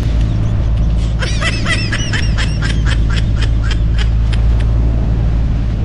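Outrigger boat's engine running steadily under a person's high-pitched laughter. The laughter comes in quick repeated 'ha-ha' bursts, about four a second, from about one second in until near four seconds.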